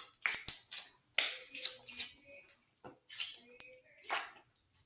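Green slime squeezed and stretched between the hands, giving a string of irregular sticky crackles and small pops.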